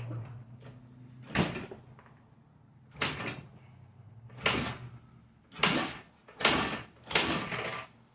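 2000 Honda XR100R dirt bike kicked over six times in a row, about a second or so apart, each stroke a short mechanical clatter of the kickstarter and turning engine that does not fire. The engine has very low compression, only about 5 psi.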